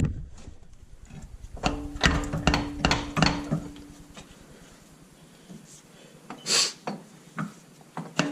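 Sharp knocks and clunks of a CV axle and tools being handled and fitted, several in quick succession in the first few seconds. A brief scraping hiss comes about six and a half seconds in.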